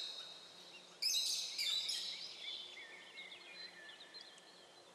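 Songbirds singing: a burst of high, quick notes about a second in, then softer chirps trailing off.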